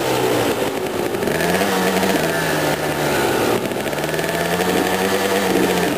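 250cc two-stroke dirt bike engine revving under throttle: its pitch climbs about a second and a half in, holds, drops briefly just past the middle, then climbs again.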